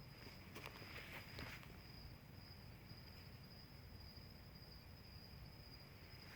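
Near silence with a faint, steady, high-pitched insect trill, and a few faint rustles about a second in.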